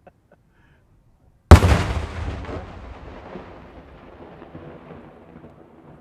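A daytime aerial firework shell bursting overhead: one sharp, very loud bang about a second and a half in, its echo rolling away over the next four seconds.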